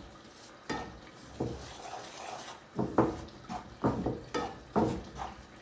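Wooden spoon stirring and scraping dry whole-wheat flour around a frying pan, in a series of irregular scrapes. The flour is being dry-roasted on low heat without any oil.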